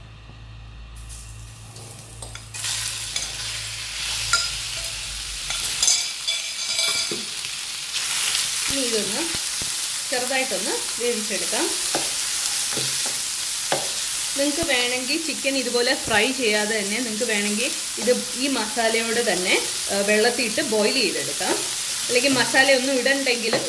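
Marinated chicken pieces sizzling in hot sunflower oil in a non-stick frying pan, stirred with a wooden spatula. The sizzling starts a couple of seconds in as the chicken goes into the pan and gets louder about eight seconds in.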